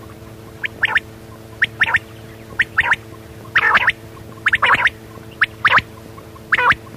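Quail calling over and over, about once a second. Each call is a high-pitched short note followed by a quick double note, over a steady low hum.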